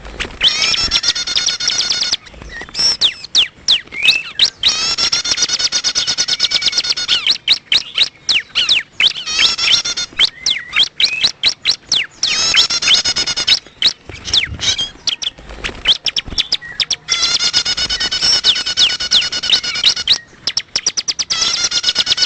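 Bar-winged prinia (ciblek) calling: buzzy, rasping phrases of one to three seconds, repeated several times, with rapid sharp ticking notes between them.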